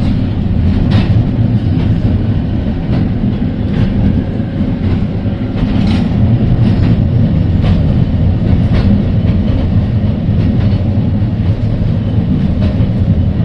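Heritage electric tram running along the track, heard from on board: a steady low rumble with occasional sharp clicks of the wheels over rail joints.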